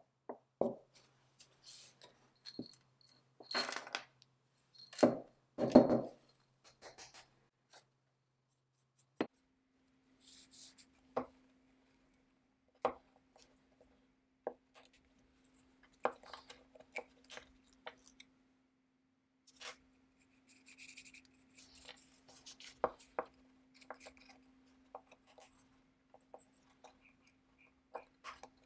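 Small steel parts clicking and clinking on a wooden bench as a chainsaw piston is taken apart: the wrist pin and the loose needle rollers from its needle bearings are being handled. Irregular light clicks, with a cluster of louder knocks a few seconds in.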